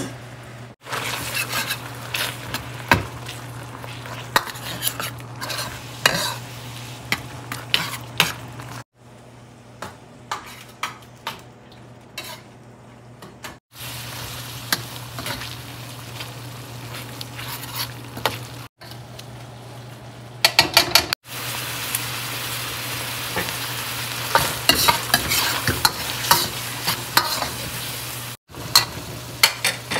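Chicken pieces sizzling in red curry paste and coconut milk in a wok, stirred with a metal ladle that scrapes and clinks against the pan many times. A steady low hum runs underneath, and the sound drops out briefly several times.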